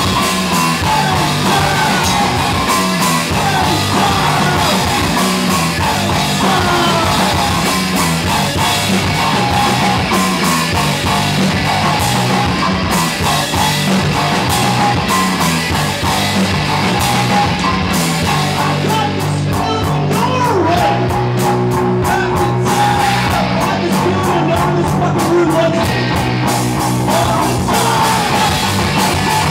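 A rock band playing live and loud, with electric guitar, bass and drum kit.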